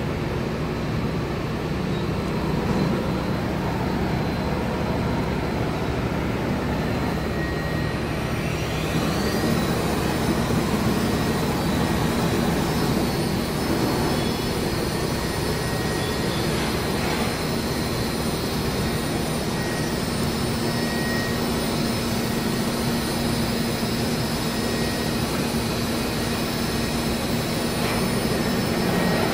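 CNC router running with steady machine noise; about eight seconds in a whine rises in pitch as the spindle spins up, then holds steady, and the noise swells near the end.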